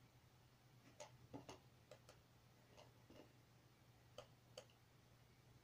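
Faint mouse-button clicks, mostly in quick pairs like double-clicks, several times over a steady low hum.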